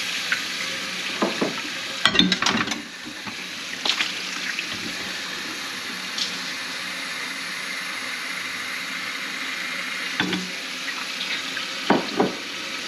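Water tap running steadily into a sink as a pet's water bowl is rinsed out to clear hair and dirt, with a few short knocks as the bowl is handled.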